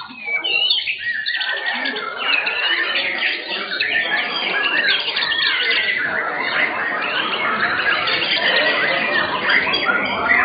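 White-rumped shamas (murai batu) in show cages singing at once: a loud, dense, overlapping stream of rapid whistled and trilled phrases.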